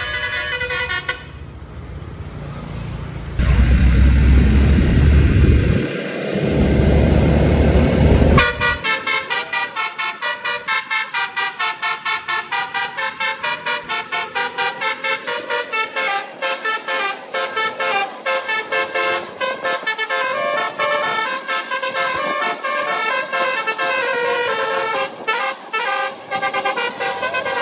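A bus's Basuri multi-tone "telolet" horn playing a fast melodic run of short honks that repeat several times a second and change pitch. Before the horn starts, a few seconds in, a loud low engine rumble swells from the passing bus.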